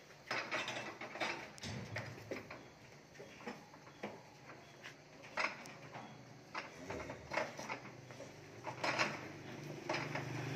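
Irregular knocks and clatter as a herd of cattle shuffle and jostle on a concrete floor. A cow begins to moo near the end.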